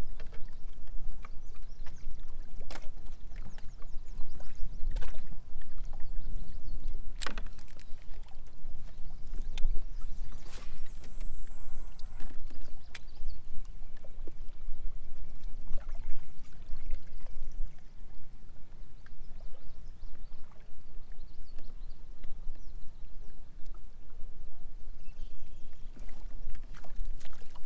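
Water lapping and sloshing against a kayak hull, over a steady low rumble of wind on the microphone. A few sharp clicks come through, and a short high hiss sounds about ten seconds in.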